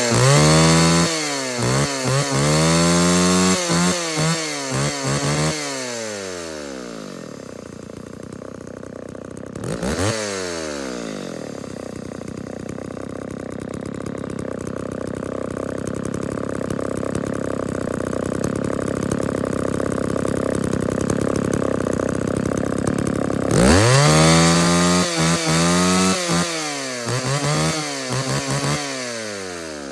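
Classic two-stroke chainsaw running, blipped repeatedly to high revs and back, then settling to a steady idle for about twelve seconds before being revved in short bursts again.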